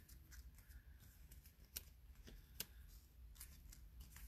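Faint paper handling: scattered light clicks and rustles as foam adhesive dimensionals are peeled from their backing sheet and pressed onto a paper die-cut, the two sharpest clicks a little under two seconds in and about two and a half seconds in.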